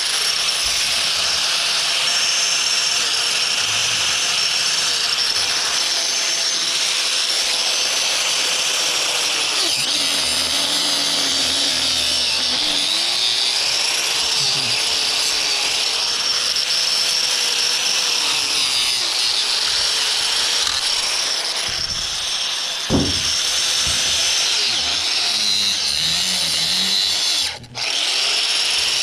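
Handheld power tool cutting into a thick copper power cable, its motor running steadily and sagging in pitch under load about a third of the way in, then wavering as it bites. There is a sharp knock near the end and a brief stop just before the close.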